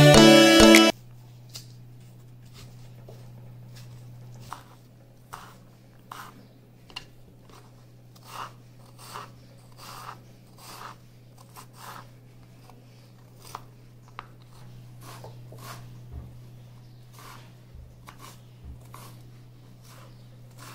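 Kitchen knife chopping raw green mango on a wooden cutting board: irregular short knocks as the blade cuts through the firm fruit onto the board, about one or two a second. A steady low hum runs underneath.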